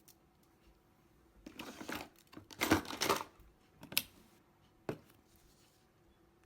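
Handling noise: about two seconds of rustling and scraping, then a sharp click and another click about a second later.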